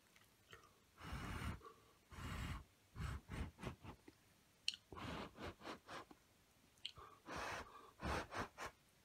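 Short puffs of breath blowing on hot udon noodles to cool them: about a dozen puffs, some about half a second long, others quicker.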